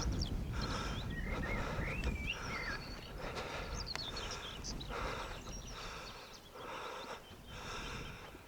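A walker breathing hard after climbing a steep hill, about one breath a second, easing toward the end. Birds chirp in the background, and wind rumbles on the microphone for the first few seconds.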